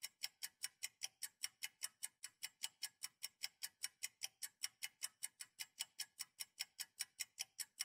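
Clock ticking sound effect: sharp, evenly paced ticks, about five a second, faint and crisp.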